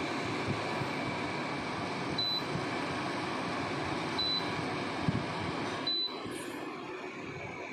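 Electric air-conditioner fan running with a steady rushing noise. A short high beep sounds three times, about two seconds apart.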